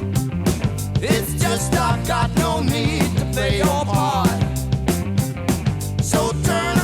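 Recorded early-1970s rock band playing between sung lines, with drums, bass and a wavering lead melody line.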